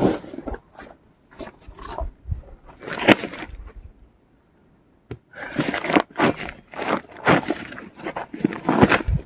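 Irregular scraping and rustling, in short uneven strokes, with a brief quiet pause about four seconds in.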